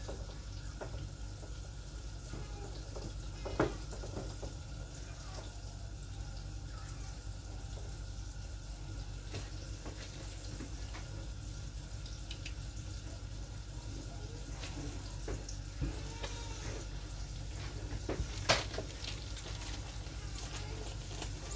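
Hot oil sizzling steadily in a skillet as a cornmeal-and-flour-coated tilapia fillet fries, with a few light clicks.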